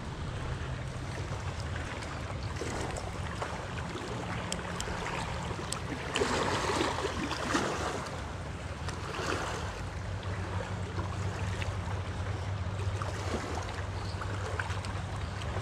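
Wind rumbling on the microphone over small waves lapping at a lakeshore, with a louder stretch about six seconds in.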